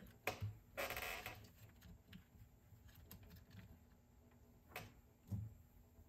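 Faint handling noises of small cassette-deck mechanism parts being fitted: a click, a brief scraping rustle about a second in, and two soft knocks near the end.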